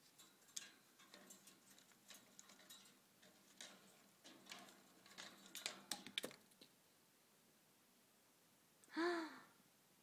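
Faint scattered clicks and rustles of a budgie moving about its cage for about six seconds, then quiet, and a woman's short hum rising and falling near the end.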